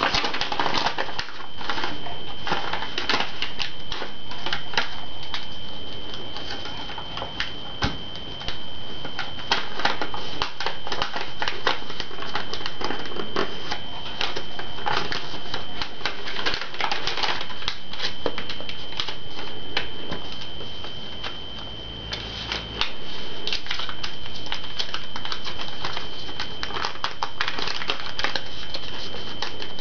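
Origami paper being folded and creased by hand, crackling and rustling in a dense, irregular run of small clicks. A steady high-pitched whine sits underneath.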